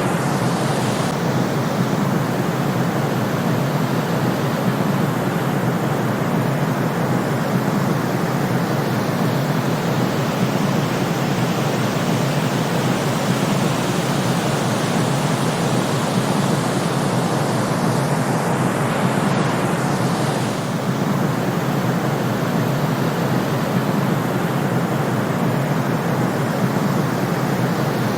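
Steady synthetic sleep noise, an even hiss weighted toward the low and middle range, with a slight shift in tone about 20 seconds in.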